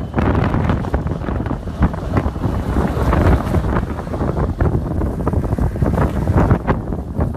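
Wind buffeting the microphone in loud gusts, mixed with the engine noise of an SUV pulling a second SUV out of deep snow on a tow strap.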